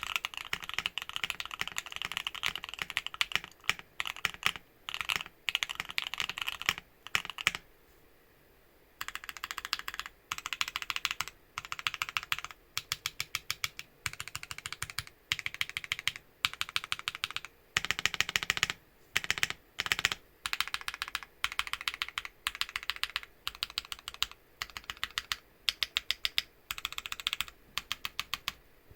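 Typing on a Bakeneko60 60% mechanical keyboard with lubed Banana Split linear switches: a fast, continuous run of keystrokes, a pause of about a second and a half, then short bursts of keystrokes with brief gaps between them.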